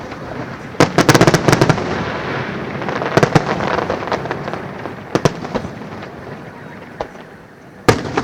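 Fireworks display: shells bursting with sharp bangs, a quick volley of them about a second in, more bursts around three and five seconds and a loud one near the end, with crackling between.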